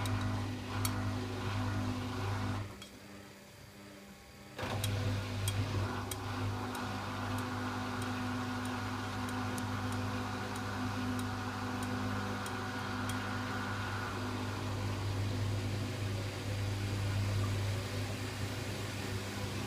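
Samsung WF6700 front-loading washing machine running, its AC brush motor humming steadily as it turns the drum. The motor stops for about two seconds a few seconds in, then starts again, with light clicks after the restart.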